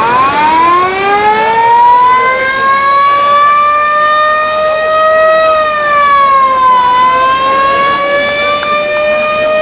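Mechanical siren of a vintage fire engine winding up from a low pitch to a steady wail over about five seconds, sagging in pitch about seven seconds in and then rising again.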